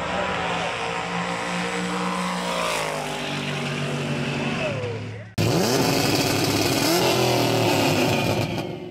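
Drag-racing trucks' LS V8 engines running hard down the strip, their pitch rising and falling. The sound cuts out briefly about five seconds in and comes back a little louder with an engine revving up.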